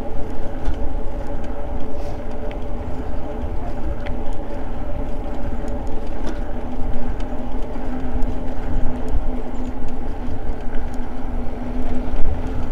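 Eahora Juliet e-bike riding along a paved trail: wind buffeting the microphone and tyre rumble, with a steady electric motor whine. A lower hum joins about halfway through, and there are a few small ticks.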